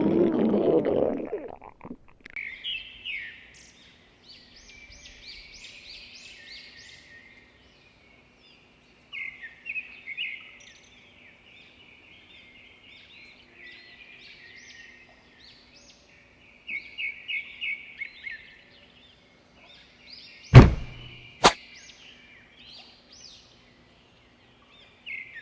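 A stomach growl rumbles low and ends about two seconds in. After it, birds chirp in short repeated bursts. About twenty seconds in there is a sharp thump, then a click a second later.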